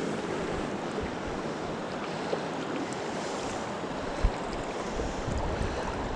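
Rushing river water, a steady even hiss, with wind buffeting the microphone. A brief low thump about four seconds in.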